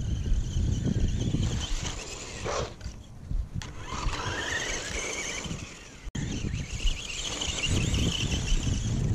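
Radio-controlled Team Losi JRX-T truck's brushed electric motor and gears whining, the pitch falling and rising as the throttle is worked, over a low rumbling noise.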